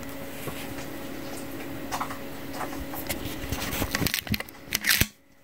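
Irregular rustling and light clicks of fabric and camera being handled at a sewing machine, over a low steady hum. The handling noises thicken toward the end, with a louder rustle just before the sound drops out briefly.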